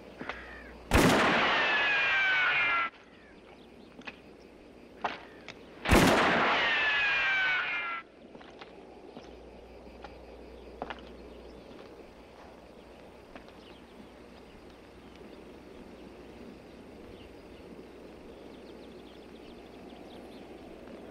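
Two gunshots from a western film soundtrack, about five seconds apart, each ringing on for about two seconds with a tone that falls in pitch. Afterwards a low outdoor ambience with a few faint clicks.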